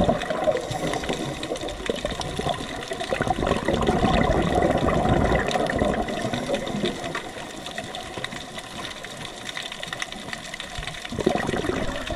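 Water rushing and bubbling, swelling louder and softer every few seconds.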